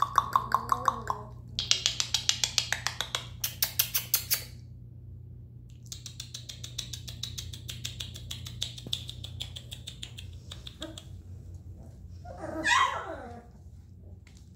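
Young Newfoundland puppies squeaking in quick chattering runs of high little squeaks, with one louder wavering whine near the end, over a steady low hum.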